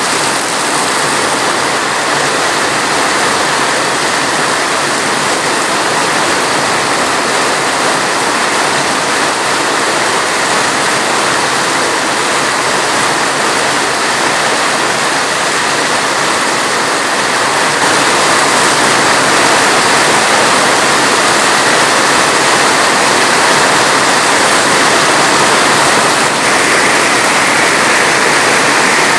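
Steady heavy rain, a dense, even rushing hiss of water with no separate drops standing out, a little louder from about two-thirds of the way in.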